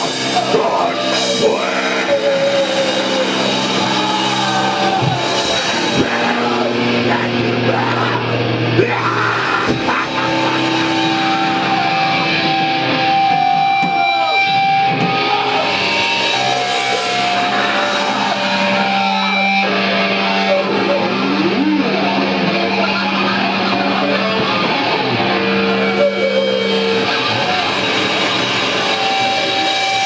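Heavy metal band playing loudly: distorted electric guitars, bass and drums.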